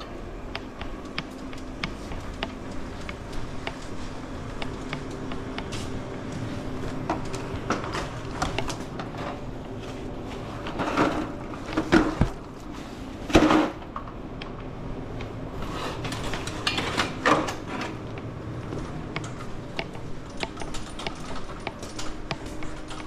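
Empty drink crates being handled, with rattling and clicking throughout and several loud knocks and clatters around the middle, over a steady low hum.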